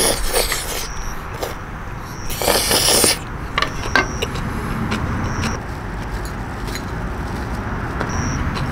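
A person slurping noodles loudly, twice: once at the start and again about two and a half seconds in. A steady low rumble of traffic runs underneath, with short high chirps coming and going.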